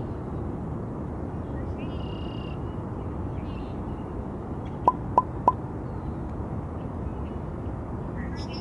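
Outdoor ambience: a steady low rushing background with a few short bird calls in the first half. About five seconds in come three sharp clicks in quick succession, the loudest sounds here.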